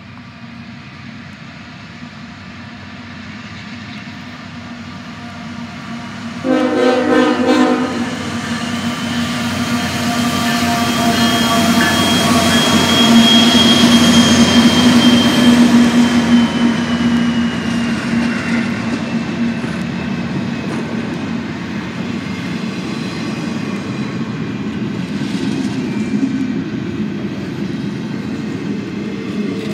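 GE ET44AC diesel locomotive leading a double-stack intermodal train as it approaches and passes. The engine rumble builds, there is one short horn blast about six seconds in, and the sound is loudest around the middle, with a high whine that drops in pitch as the locomotive goes by. The container cars then roll past with steady wheel-on-rail noise.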